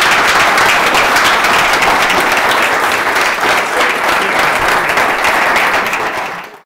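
Small audience applauding, a steady patter of many hands clapping that fades out near the end.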